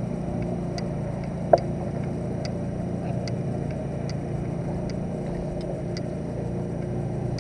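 Spinning reel being cranked to bring in a hooked fish, with faint short ticks a little more than once a second, over a steady low rumble.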